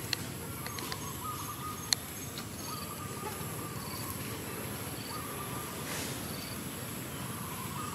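Outdoor insect ambience: a steady very high-pitched buzz, with short high chirps repeating about once a second and a faint wavering whistle that comes and goes. Two sharp clicks fall in the first two seconds.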